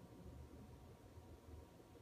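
Near silence: faint room tone with a low, uneven rumble and hiss.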